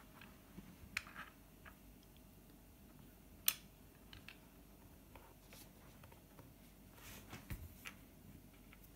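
Faint, scattered clicks of Scrabble tiles being handled on the rack and set down on the board, with one sharper click about three and a half seconds in and a small cluster near the end.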